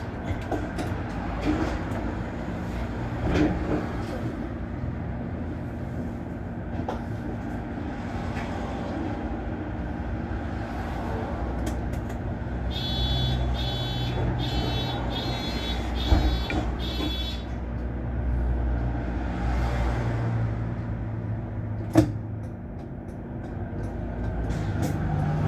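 MAN articulated city bus engine idling while the bus stands still, heard from the driver's cab. From about 13 to 17 seconds a series of about seven electronic beeps sounds, a few sharp knocks come through, and the engine gets louder near the end.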